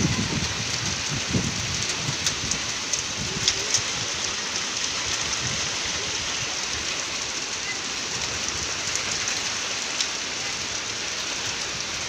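Heavy rain pouring steadily onto a concrete yard and thatched roofs. A few sharp ticks stand out in the first four seconds, and one more comes near the end.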